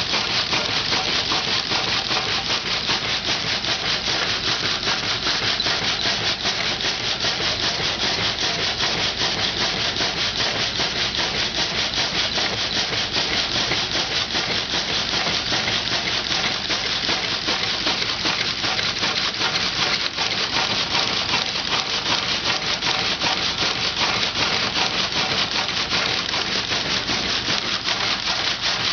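Water-powered sawmill running, its saw cutting through wood with a steady, unbroken noise.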